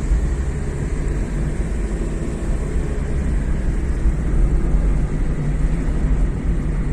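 Vehicle driving along a road: a steady low engine and road rumble with no sudden changes.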